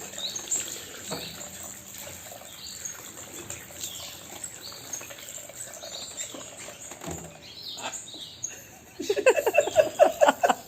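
Birds chirping in short high calls. About nine seconds in, a much louder, fast run of pulsing sounds starts.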